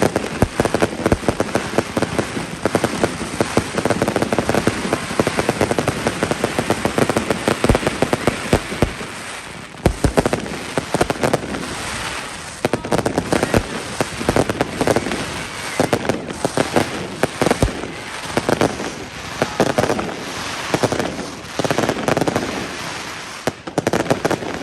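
Fireworks going off: a dense, continuous crackle of many small bursts, with a few deeper booms among them.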